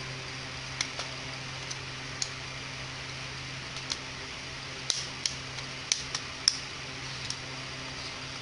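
Small, sharp clicks and taps, about a dozen at irregular intervals, from a partly reassembled Baofeng UV-82 handheld transceiver's metal chassis and circuit board being handled and fitted together, over a steady low hum.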